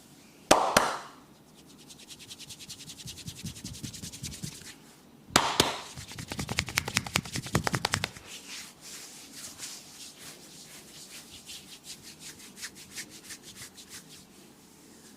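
Massage hands working over a head and hair: fast scratchy rubbing and patting strokes, with two sharp smacks near the start and another about five seconds in, then lighter quick scratching.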